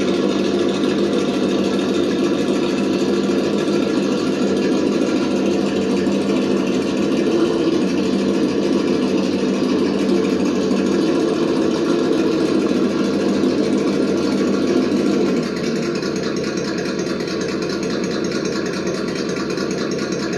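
A 1/10 scale RC crawler truck running as it crawls over rock, giving a steady engine-like drone. The drone drops a little in level about three-quarters of the way through.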